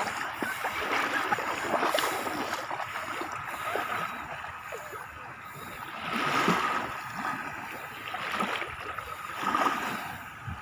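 Small sea waves lapping and washing up on a sandy shore, swelling louder a few times, with splashing from a child's feet wading through the shallows near the start.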